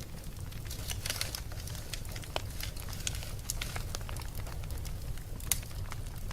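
Wood fire burning in a fireplace, crackling with irregular sharp pops over a steady low rumble of the flames; a cluster of crackles about a second in and one loud pop near the end.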